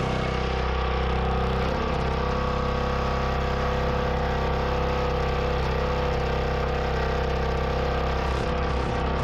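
An engine running steadily at an even speed, with a change in its low note about two seconds in.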